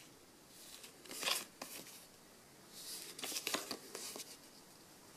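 Quiet rustling and sliding of paper stickers as a stack is handled and flipped through between the fingers, in two short spells: about a second in, and again from about three to four seconds in.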